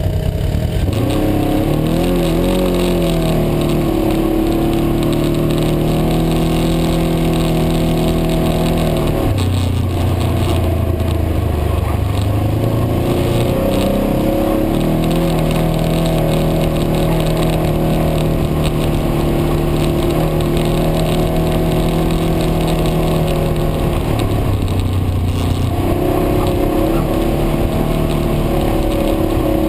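Side-by-side UTV's engine running under load, heard from inside the cab: it climbs in pitch, holds steady for long stretches, and twice eases off to a lower note before picking up again.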